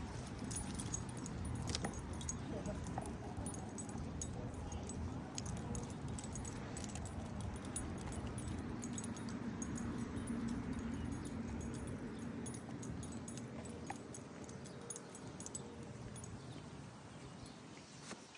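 Dog's collar tags jingling in light, irregular ticks over a low rumble that fades in the last few seconds.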